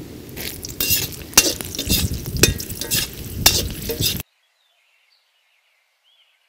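Green chillies sizzling as they fry in hot oil with chana and urad dal in a black kadai, a metal slotted spoon stirring and clinking against the pan. The sound cuts off abruptly about four seconds in, leaving near silence.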